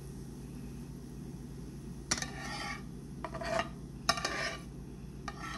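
A spoon scraping and clinking against a skillet and baking dish as sautéed onions and green peppers are scooped out. There are four short clatters with scrapes, the sharpest about two and four seconds in, over a steady low hum.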